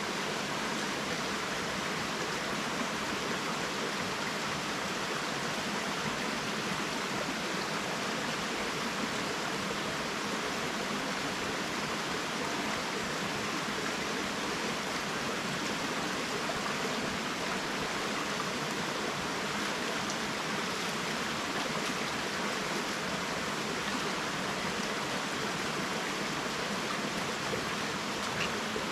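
Steady rush of water tumbling over rocks, an even, unbroken hiss.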